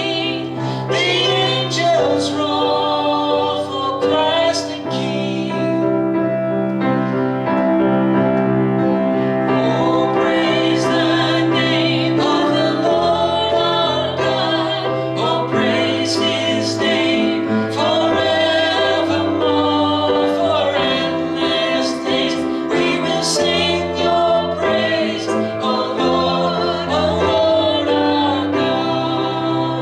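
Worship song playing: voices singing with vibrato over held instrumental chords.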